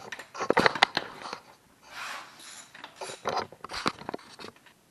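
Socket ratchet clicking in short irregular bursts, with metal clinks of the tool against the engine, as the engine mounting bolts are tightened on a motorcycle frame.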